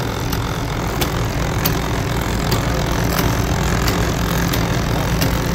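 Motor-driven 'do nothing machine' running: its gear motor, roller chains, timing belts and bevel gears on steel shafts make a steady mechanical hum, with light clicks repeating about every half second.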